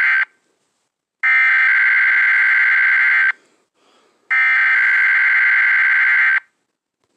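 Emergency Alert System header tones: a harsh, buzzing electronic tone in bursts about two seconds long, a second apart. The tail of one burst ends just after the start, and two full bursts follow.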